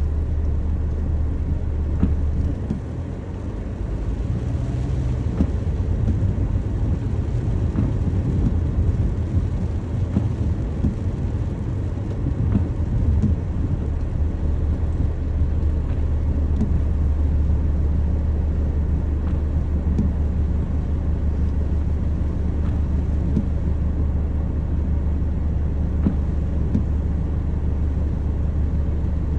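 Rain ambience: a steady low rumble with faint scattered taps, easing briefly about three seconds in.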